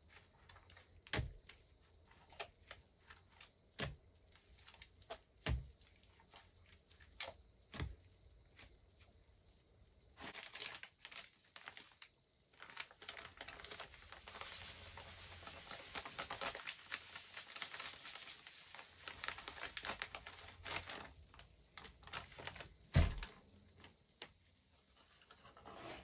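Soap-soaked sponges squeezed in a tray of foamy cleanser paste, giving scattered wet squelches and pops. About ten seconds in, a plastic packet crinkles as powdered cleanser is shaken out over the sponges for about ten seconds, with a single sharp knock near the end.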